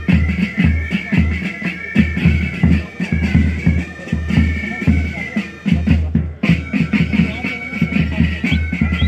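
Military pipe band playing: bagpipes hold a melody over bass and snare drums beating a quick march rhythm. The pipes break off for a moment about six seconds in while the drums keep going.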